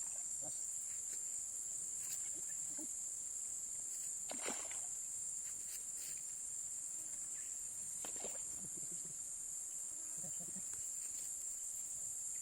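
Steady high-pitched chorus of insects, with a couple of faint clicks about four and eight seconds in.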